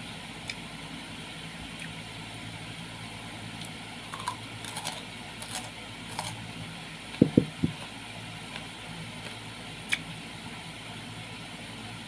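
Someone biting and chewing fruit slices, with a few short crisp bites about four to six seconds in, over a steady low hum. About seven seconds in come three loud dull thumps close together, and a single click near ten seconds.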